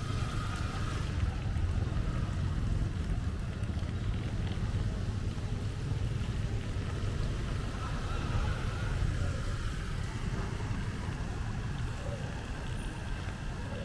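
City street traffic on a rain-wet road: a steady low rumble of passing vehicle engines and tyres, with an even hiss above it.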